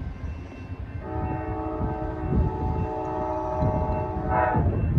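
Amtrak locomotive's multi-chime air horn sounding one long blast for the grade crossing, starting about a second in and sagging in pitch as it releases near the end. Wind rumbles on the microphone underneath.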